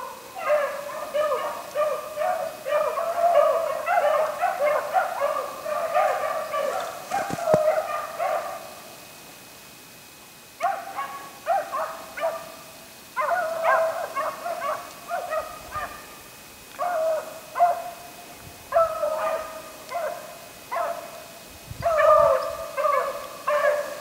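Pack of beagles baying as they run a rabbit's track, a near-continuous chorus for about nine seconds, a short lull, then baying again in repeated bursts.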